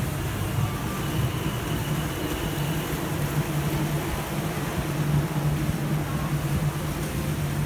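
Steady city traffic noise with a low, even engine hum underneath.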